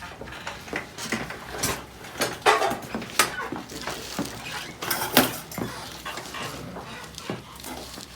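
Chiropractic adjustment: a string of sharp, irregularly spaced cracks and knocks from the patient's spine being manipulated and the treatment table being worked, the loudest a few seconds in.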